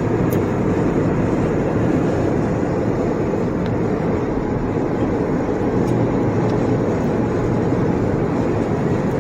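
Steady road and tyre noise of a car cruising at highway speed, heard from inside the cabin.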